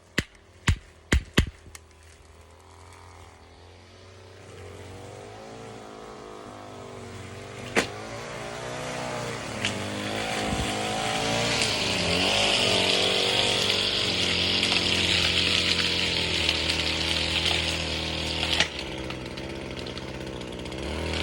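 Four quick shots in the first second and a half, then a petrol lawn mower engine coming closer, growing louder and running close by with its pitch wavering, loudest in the second half.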